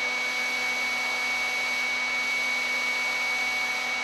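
Table-mounted router spinning a reverse glue joint bit at full speed, a steady high motor whine with a rushing hiss, ready for a test cut.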